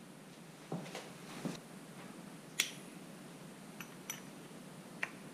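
Light metallic clicks and taps of a small hand tool and parts being handled on the open cylinder head of a Suzuki SV650 V-twin during a shim-under-bucket valve clearance adjustment. A handful of separate clicks, the sharpest about two and a half seconds in, and a couple near four seconds with a short metallic ring.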